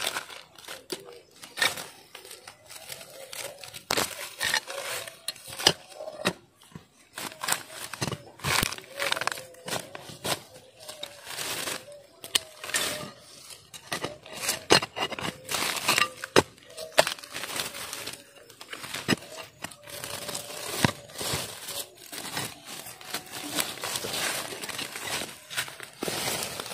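Dry leaves and twigs crunching and crackling in many quick, irregular snaps as undergrowth is pushed through and disturbed.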